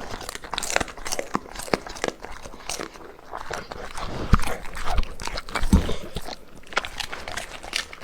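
A dog chewing and biting raw food and vegetables, with irregular wet crunches and clicks and a couple of heavier thumps near the middle.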